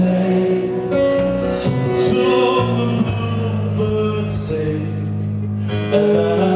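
Live band music: a man singing over a stage piano and band, with a steady bass line and held notes, recorded from the audience.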